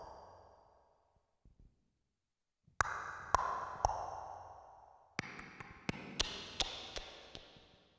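Sharp percussive clicks, each ringing out with a long electronic echo-like tail: three strikes a little past the middle, then a quicker run of clicks near the end that fades away.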